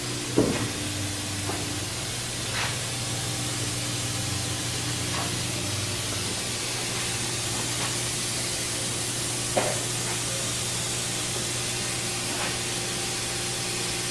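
Steady workshop noise: an even hiss over a low electrical hum, broken by a sharp metallic knock about half a second in and another near ten seconds, with a few faint clicks between.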